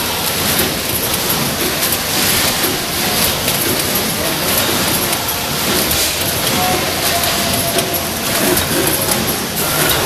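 Vertical form-fill-seal pouch packing machine with an auger filler running: a steady mechanical din with repeated clicks as it cycles.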